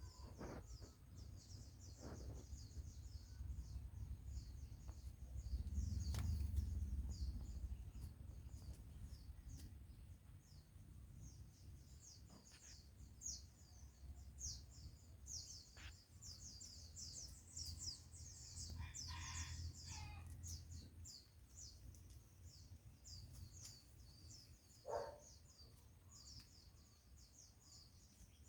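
Small birds chirping steadily in quick, high notes, over a low rumble that swells twice.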